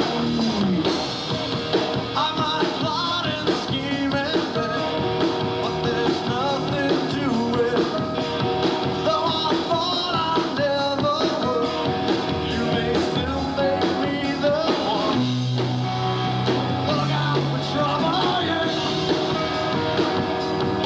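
Rock band music with electric guitar and some singing; a heavy bass line comes in about fifteen seconds in.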